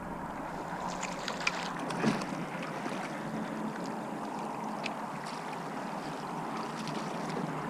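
Steady rush of river water moving past a drifting boat, with a few light ticks and splashes.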